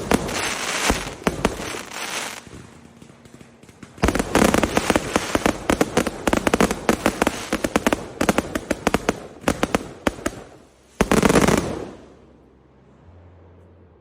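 Aerial fireworks going off: a volley of loud bangs, then a dense run of rapid crackling reports from about four seconds in, and one last loud burst near the end that fades away.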